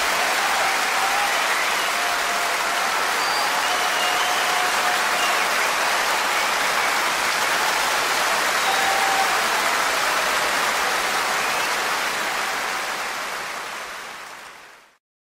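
Steady, even hiss with a few faint, thin wavering tones over it. It fades away to silence about a second before the end.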